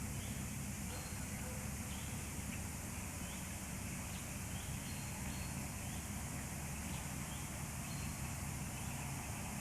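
Faint, short, high chirping calls repeating about once or twice a second over a steady low hum and hiss.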